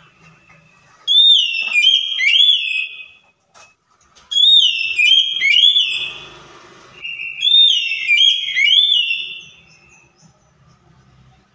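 Oriental magpie-robin singing: three phrases of loud, clear whistled notes, each note sliding down and back up, separated by short pauses. A brief harsh rasp runs under the second phrase.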